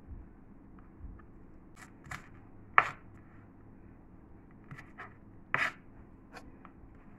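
Kitchen knife chopping red onion on a plastic cutting board: irregular sharp knocks of the blade on the board, the loudest about three seconds in.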